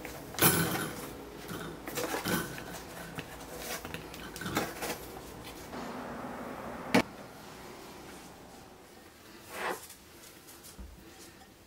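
Tangerines being set into a stainless steel wire basket, then the basket set down on a white cabinet top: scattered light knocks and clatters, the sharpest about half a second in, and a single sharp click about seven seconds in.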